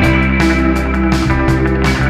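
Rock music with guitar, heavy bass and a steady drum beat.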